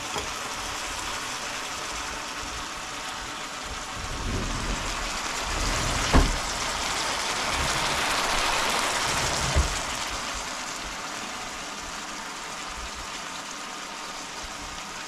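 Chicken adobo sizzling and bubbling in its soy-vinegar sauce in a frying pan on a portable butane stove: a steady hiss that swells for several seconds in the middle. Two sharp knocks about six and nine and a half seconds in.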